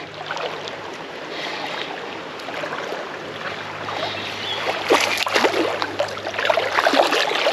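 Water splashing and sloshing as a hooked bass thrashes at the surface of a creek while being fought in. The splashes grow louder and come thicker from about five seconds in.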